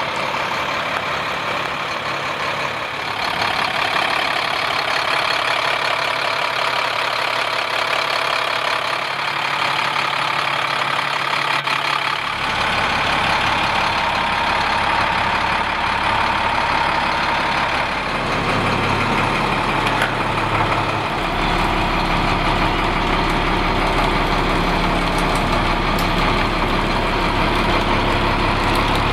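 International 4400 truck's diesel engine idling steadily, with a low hum that comes up about twelve seconds in and grows stronger around twenty-one seconds.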